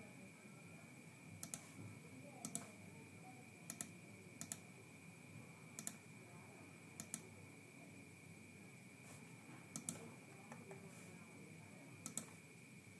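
Computer mouse clicks, single and in quick pairs, every second or two, over a faint steady high-pitched whine.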